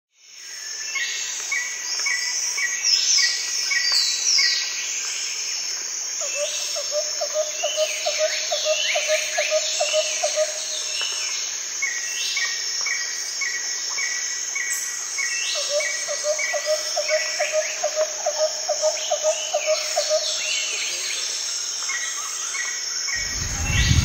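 Birdsong ambience: several birds calling, with repeated runs of short, evenly spaced chirps and quick falling notes, over a steady high insect buzz. A lower pulsed trill sounds twice, and a low rumble comes in near the end.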